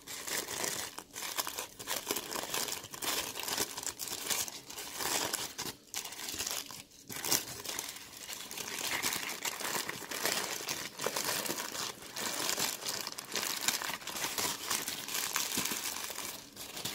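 White tissue paper crinkling and rustling as it is unwrapped by hand from a small item.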